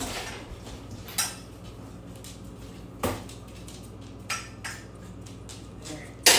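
Cookware and utensils clattering: a handful of separate knocks of a spoon or lid against a pot while the cooking noodles are checked, the loudest near the end, over a low steady hum.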